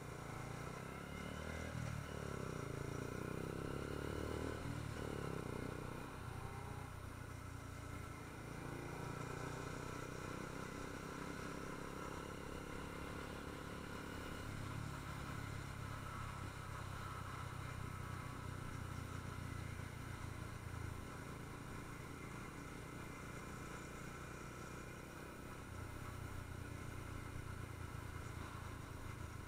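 Motorcycle engine running while riding, its note rising and falling with the throttle during the first several seconds, then running more steadily.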